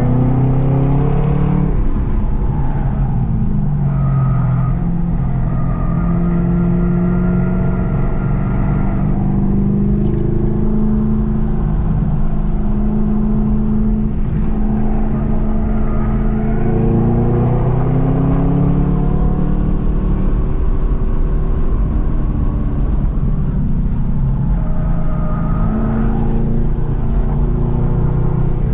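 Car engine being driven hard on a racetrack, its revs rising under acceleration and falling off when lifting for corners, again and again.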